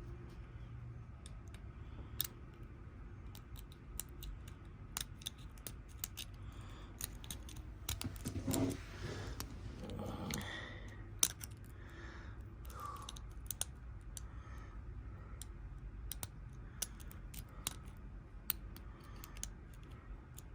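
Lock pick and tension wrench working in a Kwikset pin-tumbler cylinder: scattered small, faint metallic clicks and scrapes as the pins are picked, with a louder scuffle of handling around the middle.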